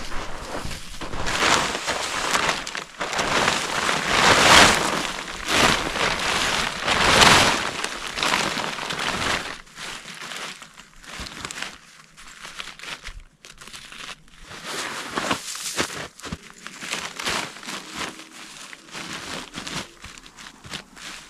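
Boots crunching and trampling snow, mixed with tent fabric rustling and crinkling as the tent is spread out on the snow. Loud and dense for about the first half, then fainter and more scattered.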